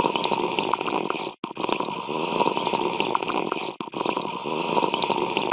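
Drinking sound effect: liquid slurped and gurgled through straws, in three stretches with two brief breaks.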